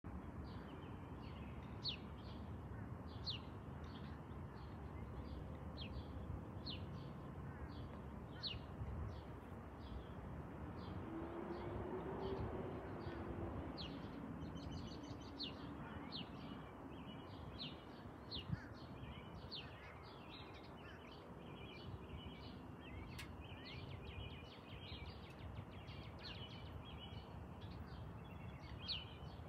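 Small birds chirping repeatedly in short, sharp notes over a faint, steady low background rumble, which swells slightly about halfway through.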